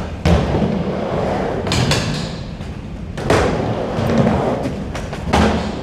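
Skateboard riding a mini ramp: wheels rolling on the ramp with a steady noise, broken by about four sharp clacks and thumps of the board landing and striking the ramp.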